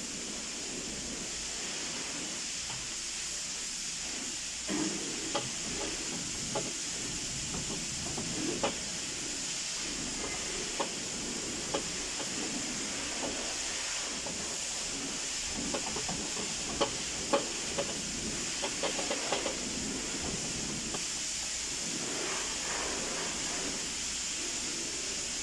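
Scattered light clicks and knocks of a plastic intake manifold being handled and seated onto the engine by hand, over a steady background hiss.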